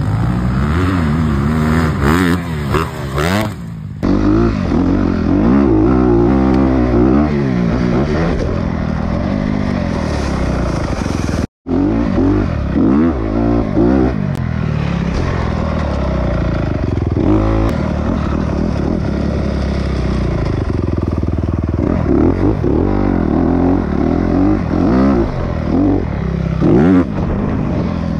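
Dirt bike engine being ridden, its pitch rising and falling again and again as the throttle is opened and shut. It cuts out for a split second about a third of the way through.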